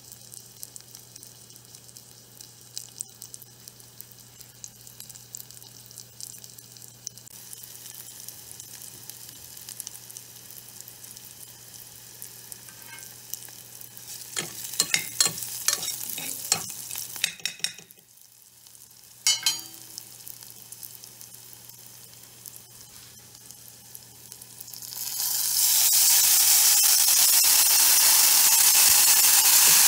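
Crushed ginger and garlic with dry red chilies frying in sesame oil in a metal pot, a steady sizzle with a metal spoon clicking and scraping against the pot while stirring. About 25 seconds in, the sizzle suddenly gets much louder as chopped tomatoes go into the hot oil.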